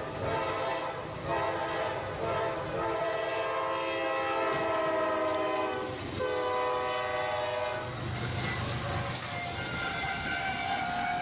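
Diesel freight locomotive's air horn sounding a chord of several notes in long blasts, one after another with brief breaks. The low rumble of the passing train comes up near the end.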